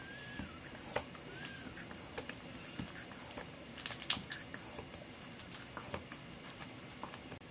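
Plastic hand-pump vacuum sealer being worked on a zip-top bag: irregular light plastic clicks and knocks from the plunger strokes, with two short squeaks in the first two seconds.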